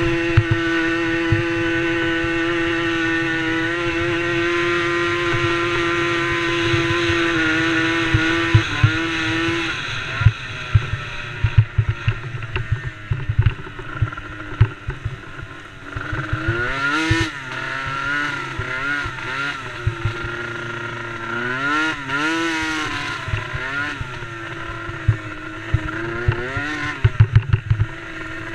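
DRR DRX90 youth quad's small engine held at steady high revs for about nine seconds, then easing off and, from about halfway on, revving up and down again and again as the throttle is worked. Short low knocks and buffeting run underneath.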